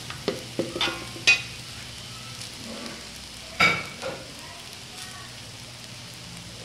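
Fried rice sizzling in a large pan as a spatula scrapes and knocks through it, with several sharp strokes in the first second and a half and one louder knock near four seconds, then steady sizzling.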